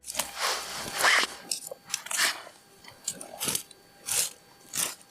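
A person chewing crunchy food close to the microphone: a run of crisp crunches, roughly two a second.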